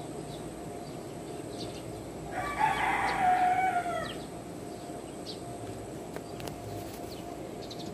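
A rooster crows once, about two seconds in, a single call lasting a bit under two seconds that falls away at the end.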